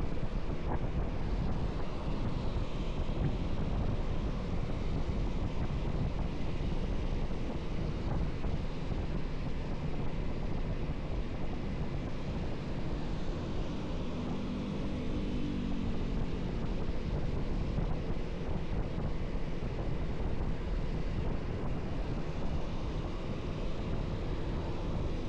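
Steady wind rush on the microphone of a moving motorcycle, mixed with engine and road noise. Around the middle a faint pitched drone swells and fades.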